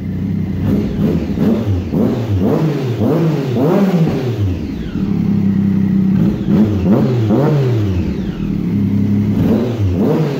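2008 Triumph Daytona 675's three-cylinder engine running, revved in repeated quick throttle blips that rise and fall in pitch, settling to a steady idle for a second or so in the middle.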